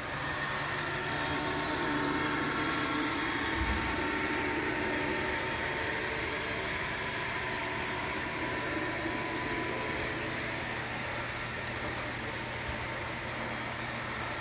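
Model freight train rolling past on the layout, a steady mechanical hum of its motors and wheels on the track.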